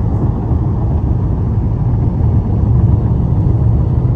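Car on the move: a steady low rumble of road and engine noise, with no distinct events.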